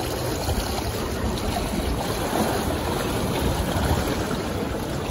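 Steady rushing noise of water washing against shoreline rocks, mixed with wind, with an uneven low rumble underneath.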